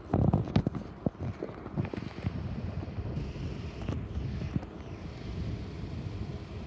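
Wind buffeting the microphone: an uneven low rumble, loudest in a few hard gusts in the first second.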